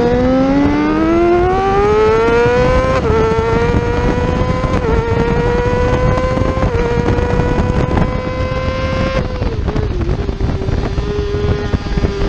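Yamaha R6 600cc inline-four race engine pulling hard, its note climbing steeply for about three seconds, then holding high and creeping upward with brief small dips. About nine seconds in the note drops sharply and then slowly falls, with a steady rush of wind throughout.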